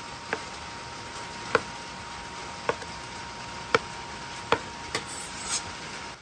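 Chef's knife slicing a tomato, the blade knocking down onto the cutting board about once a second, six sharp knocks in all.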